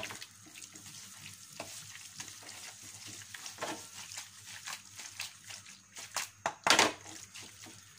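Wooden spatula stirring and scraping penne in thick tomato sauce in a nonstick frying pan, with a faint sizzle from the pan on the gas flame. Short scrapes and clicks come irregularly, with a sharper knock about seven seconds in.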